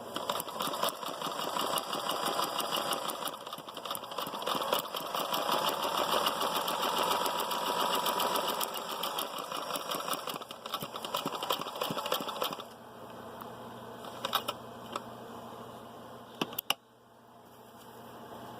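Kenmore 158.10400 all-metal sewing machine stitching: a fast, even clatter of the needle mechanism over a motor whine that rises and falls with speed. After about twelve seconds it stops sewing, leaving a quieter steady hum broken by a few sharp clicks.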